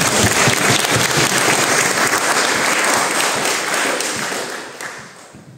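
Congregation applauding after a call of "Hallelujah", the clapping dying away near the end.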